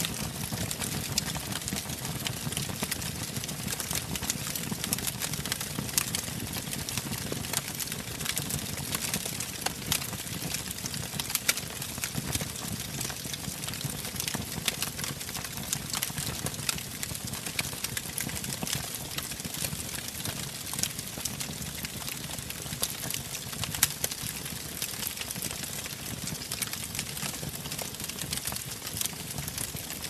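Wood fire burning, with dense irregular crackling and popping over a low steady rumble of the flames.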